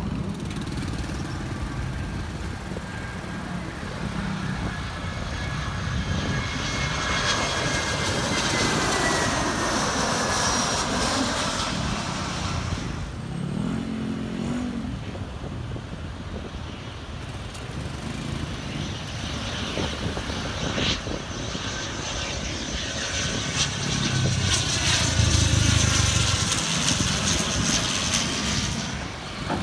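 Airliner engines as planes pass low on landing approach, twice: a steady rush with a whine that falls in pitch as each one goes by.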